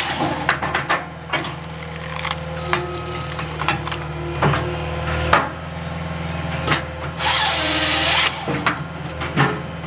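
Skid-steer-mounted Halverson HWP-140B firewood processor at work: the engine and hydraulics run steadily under a string of knocks and cracks of wood being split and moved. About three quarters of the way through, the processor's chain saw cuts through the log for about a second, its pitch dropping as it bites in and rising again as it comes through.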